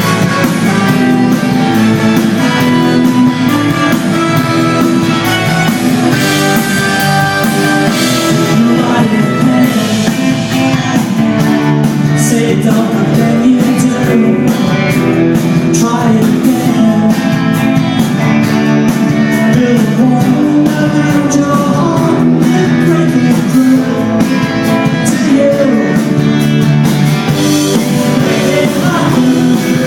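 Live rock band playing a song, with guitars to the fore and a steady drum beat, and singing over it.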